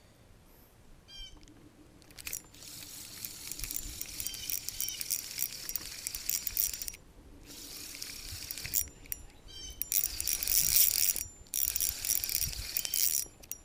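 Fishing reel being cranked to retrieve line: a fast, fine whirring of the reel's gears in several stretches of winding with short pauses between them.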